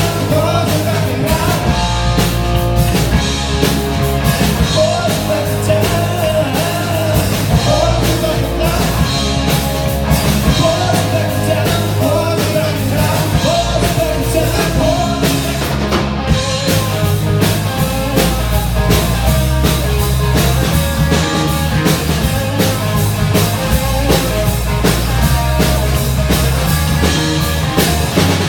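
Rock song with drum kit and sung vocals, played at a steady loud level.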